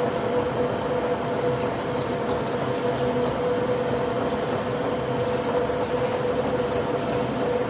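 Turret lathe running steadily while machining an aluminium blank: a constant machine drone with a steady whine held at one pitch.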